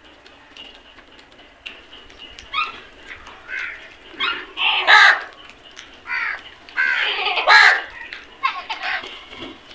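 Several crows cawing in a series of harsh calls. The calls begin a couple of seconds in and overlap, with the loudest caws near the middle and again later.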